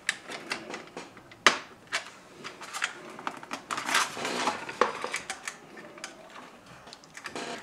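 Irregular clicks, taps and crinkling as the wing and plastic parts of a small RC model plane are handled and fitted together on a workbench.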